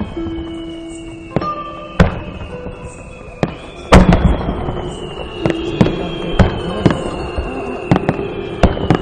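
Aerial fireworks shells bursting one after another in sharp bangs about a second apart, the loudest about four seconds in, over music playing in the background.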